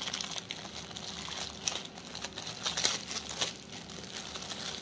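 Small clear plastic packaging bag crinkling as it is handled, in quick irregular crackles.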